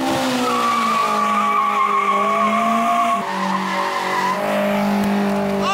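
Toyota AE86 Corolla with a naturally aspirated 3S-GE BEAMS four-cylinder, held at high revs while the rear tires spin and squeal through donuts. The engine note stays steady and drops a little in pitch about three seconds in.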